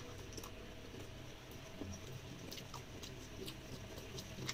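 Faint chewing and soft wet mouth clicks of a person eating by hand, a handful of small clicks scattered through.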